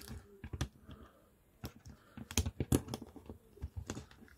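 Quiet, irregular small clicks from the plastic joints of an AEW Unrivaled action figure as its arms are worked up and down, with a short pause about a second in.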